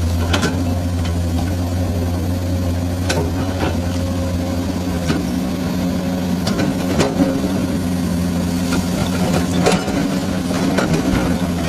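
Komatsu hydraulic excavator's diesel engine running steadily, with a scattering of short sharp knocks.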